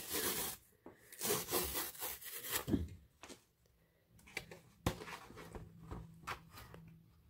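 Cardboard tear strip ripped along the edge of a rigid cardboard mailer in a few loud pulls over the first three seconds. After that, softer scraping and clicking of cardboard as the mailer is flexed open.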